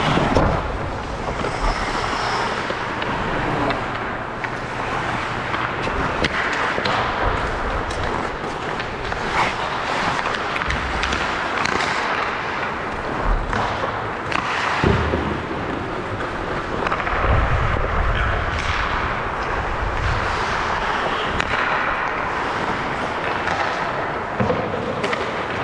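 Hockey game play: a steady scraping rush with many sharp, irregular clacks and knocks from sticks and puck.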